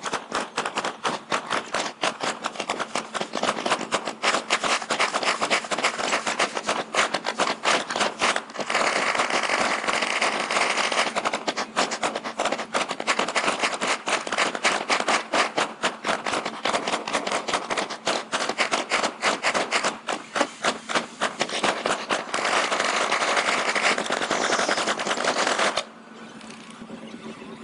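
A dense, continuous rattle of sharp bangs, several a second, like automatic gunfire. It cuts off abruptly about a second before the end, leaving a quieter steady noise.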